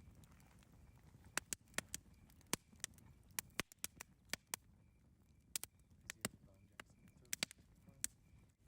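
Wood campfire crackling: irregular sharp pops and snaps, a few of them much louder, over a low steady rumble. A faint high chirp repeats evenly in the background.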